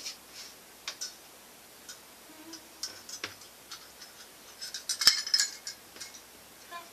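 Light clicks and clinks of measuring cups and utensils being handled while sugar is measured out, with a quick run of clinks about five seconds in, the loudest a single sharp click.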